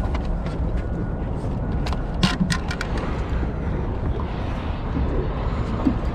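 Steady low rumble of a small fishing boat on the river, with a few sharp clicks and knocks about two seconds in.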